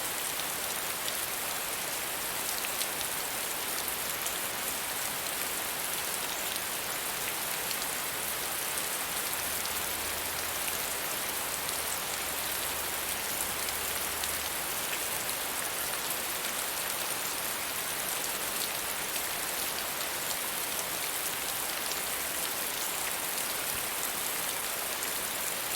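Steady medium rainfall, an even hiss of drops falling on a surface.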